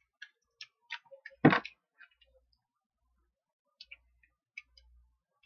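Scattered small clicks and ticks from handling slime-making materials, with one louder knock about one and a half seconds in, as of a bottle or cap set down on the table.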